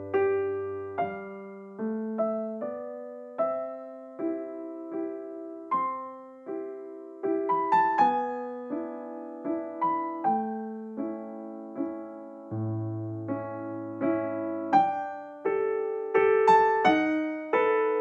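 Solo piano background music: single notes and chords struck about once or twice a second, each ringing and fading, with a low bass note in the second half and the notes coming closer together near the end.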